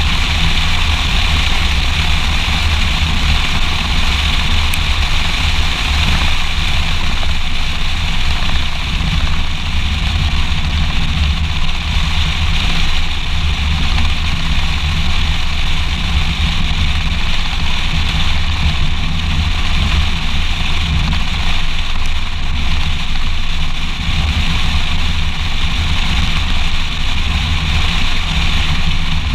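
Steady wind buffeting and tyre-on-asphalt road noise from a moving car, picked up by a camera mounted on the outside of the front wing beside the front wheel, with a deep rumble and a constant hiss.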